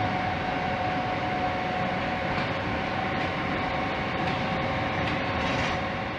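Steady running noise inside a passenger train carriage on the move: an even rumble with a constant two-note hum over it.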